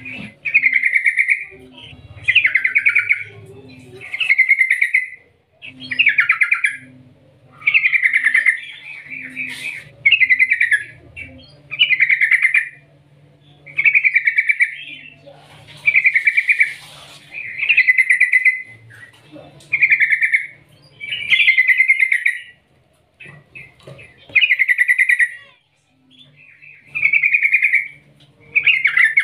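Yellow-vented bulbul singing a long run of short, fast-trilled phrases, one every one and a half to two seconds.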